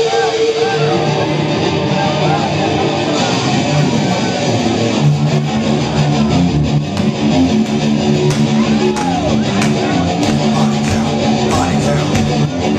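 Live rock band playing loud distorted electric guitar with drums, a repeated low riff, the drum hits growing more frequent in the second half.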